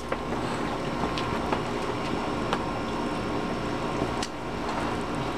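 A children's plastic ride-on toy car rolling on a concrete patio: a steady rumble from its wheels, with a few sharp clicks and knocks.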